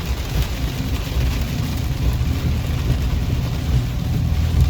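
Steady low rumble of a car driving at speed, heard from inside the cabin, with strong rear-flank-downdraft wind buffeting the vehicle.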